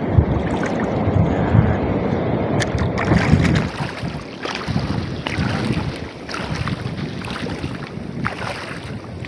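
Wind buffeting the microphone, with water sloshing and splashing as people wade through shallow seawater. The wind rumble is loudest at first and drops off about three and a half seconds in, leaving mostly the splashing.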